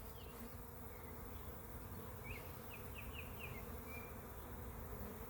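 A large swarm of honey bees humming steadily as many bees fly around the cluster.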